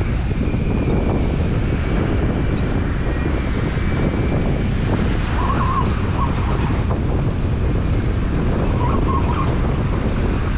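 Strong wind buffeting the microphone over the steady wash of breaking surf.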